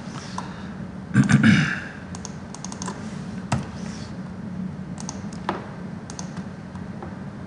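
Computer keyboard keys and mouse buttons clicking now and then as values are typed into fields, with a brief louder noise about a second in.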